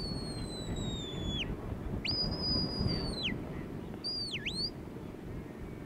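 Sheepdog handler's whistle commands: three high whistles. The first is long and slowly falling, the second rises sharply, holds and drops away, and the third is a short note that dips down and back up. A low background rumble runs underneath.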